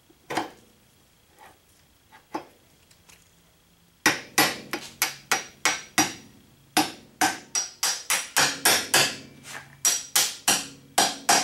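Hammer driving a new steel pivot pin through a drift into the front axle and radius arm of a Ford 8N tractor. A few light taps come first, then from about four seconds in a fast run of ringing metal-on-metal blows, about three to four a second.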